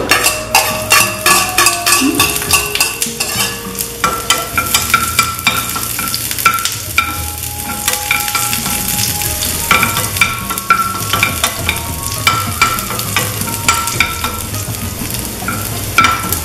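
Chopped small onions sizzling in hot coconut oil with mustard seeds in a frying pan. A spoon stirs them, scraping against the pan, with frequent sharp clicks and brief metallic rings.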